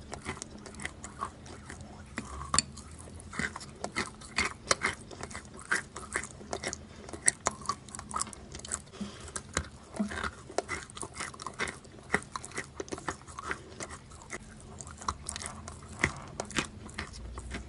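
A person biting and chewing wet chalk: a dense, irregular run of crunchy clicks and wet mouth sounds.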